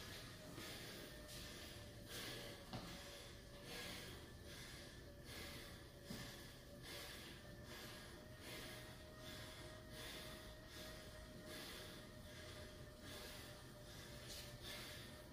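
Faint, quick, rhythmic hard breathing of a man pedalling a stationary exercise bike at high effort, about two breaths a second, over a faint steady hum.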